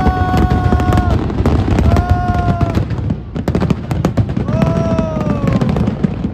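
Aerial fireworks bursting in quick succession, a dense run of bangs and booms with a constant low rumble. Three long held tones, each about a second, sound over the bangs; the last one sags slightly in pitch.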